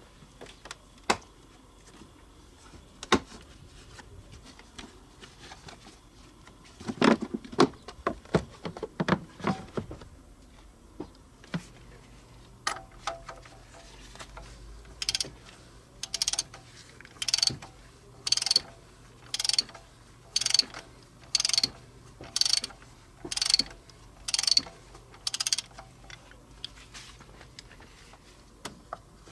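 Hand socket ratchet being worked on a bolt, its pawl rasping on each return stroke, about a dozen strokes at roughly one a second. Before that come a few scattered clicks and a short cluster of metal knocks.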